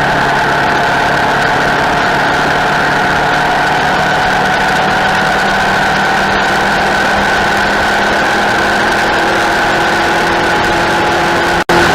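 Race motorcycle engine noise, loud and steady at a nearly constant pitch, broken by a brief dropout just before the end.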